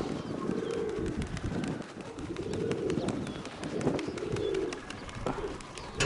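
Pigeons cooing close by: about four low, drawn-out rising-and-falling coos, one after another.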